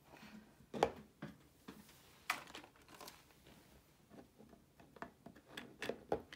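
Scattered light clicks and plastic crinkles from handling a thin clear plastic heart-shaped dome and a hot glue gun, with a quick run of clicks near the end.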